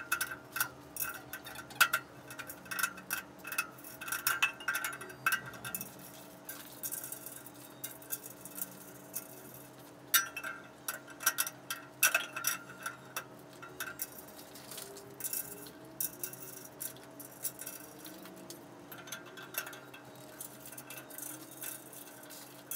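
Metal clinks and taps as steel cross braces are fitted into a pool table's steel base frame and their bolts threaded in by hand: scattered sharp clicks with short metallic ringing, coming in clusters with quieter stretches between.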